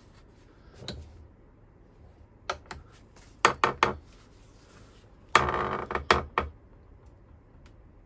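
Metal clicks and clanks from a steel bench vise being loosened, its sliding handle bar knocking, as an A/C compressor pulley is freed from the jaws. There are a few sharp knocks about three and a half seconds in and a louder rattling clank about five and a half seconds in.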